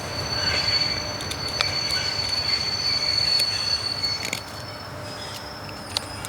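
A steady high-pitched squeal that fades out about four seconds in, with a few short sharp clicks scattered through it.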